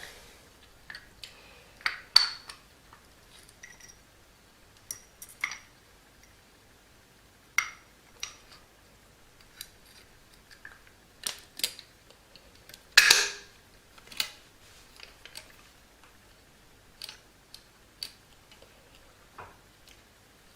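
Small metal parts of a door closer clicking and clinking as its springs and arm are worked back into place by hand: irregular sharp clicks, some with a brief metallic ring, the loudest a little past halfway.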